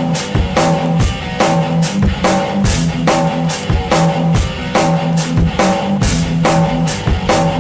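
Rock-style background music: a steady drum-kit beat with bass drum, bass line and guitar.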